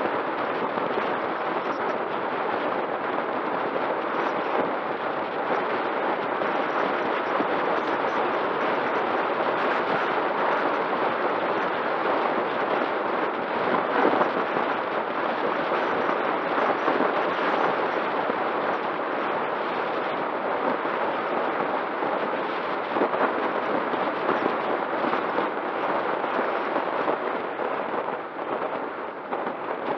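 Steady rush of wind over the camera and tyre noise from a bicycle descending fast on asphalt, with a faint steady hum underneath.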